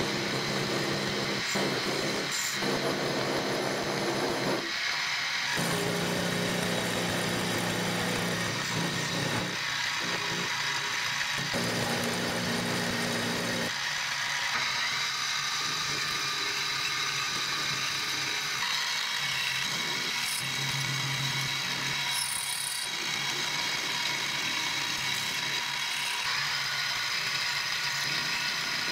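Benchtop milling machine running, its end mill cutting into metal bar stock: a steady machine whine over the hiss and chatter of the cut. The sound changes a couple of times.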